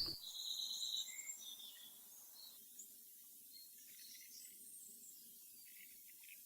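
Faint birdsong: a few high whistled notes in the first second or so, then scattered soft chirps.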